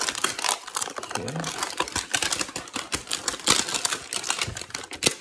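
Trading cards and a cardboard hanger box being handled: a dense run of quick clicks, taps and rustles.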